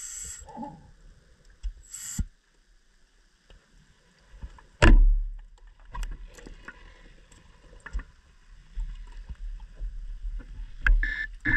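Underwater sounds of cave-diving gear: scattered clicks and small knocks, with one loud thump about five seconds in.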